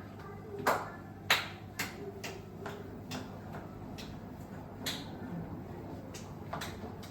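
Sharp, irregular clicks and knocks of kitchen utensils, about nine in all, over a steady low background; the loudest comes just over a second in.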